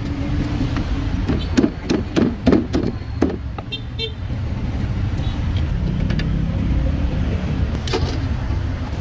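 Street traffic: a vehicle engine running with a steady low rumble that grows louder about five seconds in. A few sharp knocks come between about one and a half and three seconds, and a short horn toot near four seconds.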